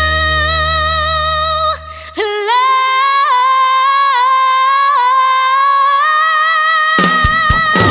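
Soundtrack music: a solo voice holds one long high sung note with vibrato, unaccompanied after the backing cuts out about two seconds in, and the full band comes back in near the end.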